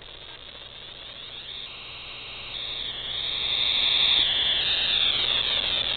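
Pseudo-random noise from a 555 timer clocking a 7-bit linear feedback shift register, played through a small speaker: a buzzy, Atari 2600-like noise. Its pitch shifts up and down as the 555's clock frequency is turned on a potentiometer, and it grows louder through the first few seconds.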